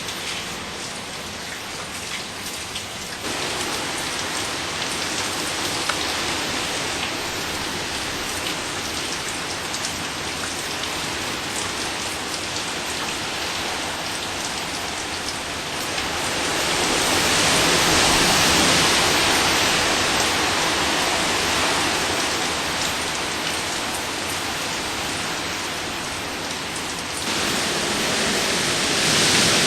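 Heavy rain from Hurricane Dolly, a steady hiss that surges louder about halfway through and again near the end.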